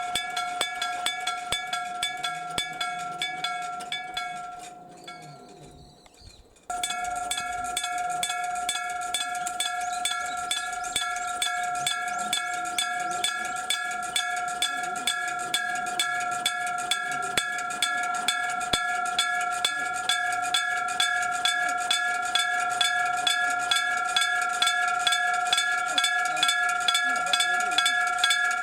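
Electric-bell (denshō-shiki) level crossing warning bell ringing, a fast steady clanging of a struck bell. The ringing dies away about four to six seconds in, then starts again suddenly and rings on.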